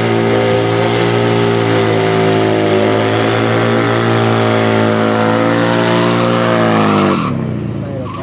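Motorcycle engine held at high, steady revs through a burnout, the rear tyre spinning on the asphalt; about seven seconds in the revs fall away and the sound drops.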